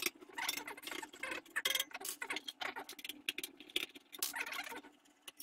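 Screwdriver undoing the screws on a stainless-steel fan heater's casing: irregular small metal clicks and scraping as the screws turn and the tool shifts on the housing.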